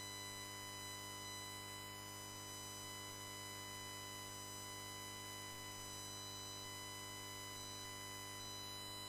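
Faint steady electrical hum and buzz on the broadcast audio line: a constant whine of several evenly spaced tones over a low hum, unchanging throughout.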